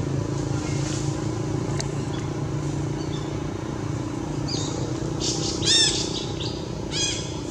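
Baby long-tailed macaque screaming: several shrill, high-pitched cries that rise and fall, starting about four and a half seconds in and loudest about six seconds in, while it is carried off by another monkey. A steady low hum runs underneath.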